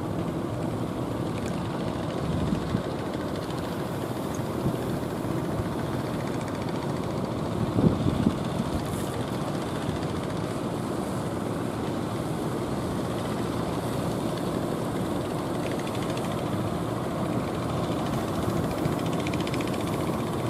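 Fishing boat engine running steadily, heard across the water, with a brief louder burst about eight seconds in.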